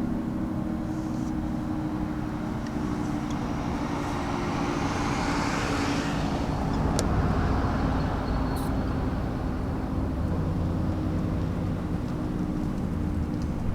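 A road vehicle passing by: its tyre and engine noise swells to a peak about six seconds in and fades again, over a steady low hum of traffic.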